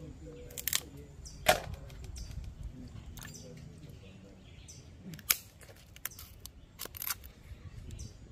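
Crab shells and legs being snapped and cracked apart by hand: a string of separate sharp cracks, the loudest about one and a half and five seconds in.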